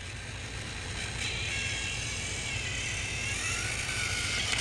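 Battery-powered Trackmaster toy train running along plastic track, its small electric motor and gears making a steady whirring whine over a low hum, growing a little louder in the first second or so as the engine approaches.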